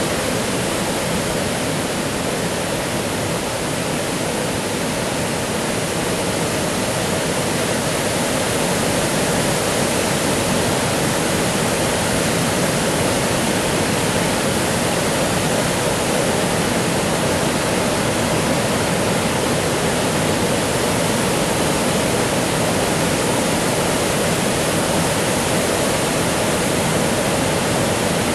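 Water spilling over a low concrete dam: a steady, even rush of falling water with no let-up.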